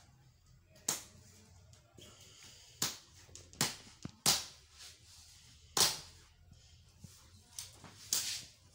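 Plastic retaining clips of a Samsung LED TV's white plastic frame snapping loose as the frame is pried off the panel by hand. About seven sharp snaps at irregular intervals, with light handling and rubbing of plastic between them.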